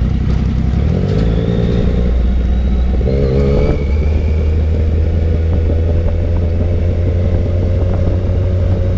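Yamaha sport motorcycle engine running while riding. The engine note changes pitch about a second in and again around three seconds, then holds steady.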